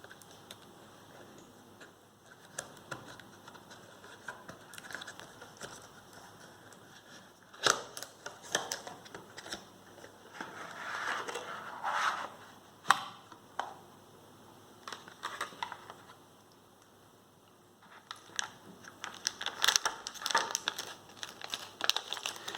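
Retail packaging of a USB cable being opened by hand: irregular rustling and crinkling of plastic and cardboard, with scattered clicks and a few sharper snaps.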